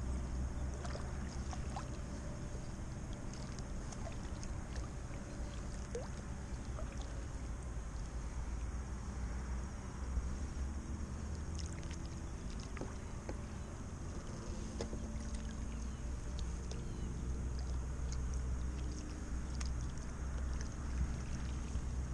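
Double-bladed kayak paddle stroking through calm water, with scattered small splashes and drips from the blades over a steady low hum.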